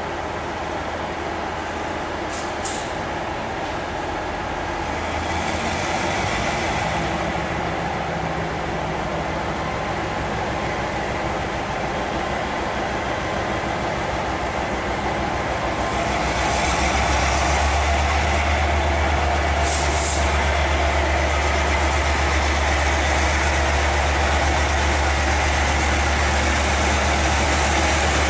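Taiwan Railways diesel-electric locomotive running as it pulls a train slowly out of the station toward the listener. Its low engine hum grows louder twice, a little about five seconds in and strongly about two-thirds of the way through. Two short hisses come about two seconds in and about twenty seconds in.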